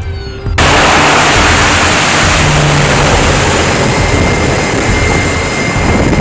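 A loud, steady rushing engine roar that cuts in abruptly about half a second in, of the jet or rocket kind.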